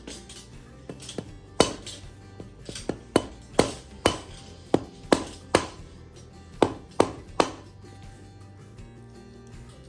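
A mallet striking the back of a cleaver, about ten sharp knocks, most of them in quick pairs, as the cleaver chops through deer ribs where they meet the spine. The knocks stop a couple of seconds before the end. Background music plays throughout.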